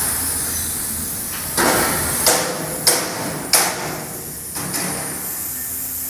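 Four sharp metal bangs, steel being struck, spaced roughly two-thirds of a second apart starting about a second and a half in, each ringing briefly, over the steady background noise of a steel fabrication shop.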